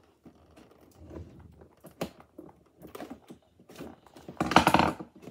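Scissors snipping and working at a cardboard toy box's packaging, with scattered sharp clicks and one louder scraping burst about four and a half seconds in.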